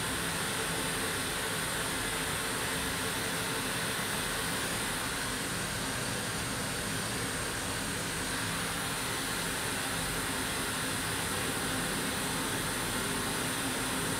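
Steady pink-noise test signal played through a three-way PA system (dual subwoofers, full-range speakers) powered by a QSC PLD4.3 amplifier, used for a real-time analyser measurement while the system's EQ is tuned flat.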